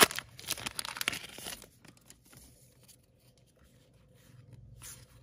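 A crimped baseball card pack wrapper being torn open and crinkled, loudest in the first second and a half. After that there are only faint rustles as the cards are handled.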